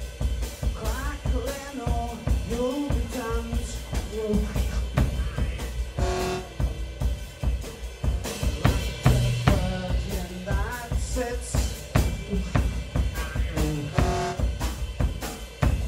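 Background music: experimental live music with busy, irregular drum-kit playing and short sliding melodic phrases over it.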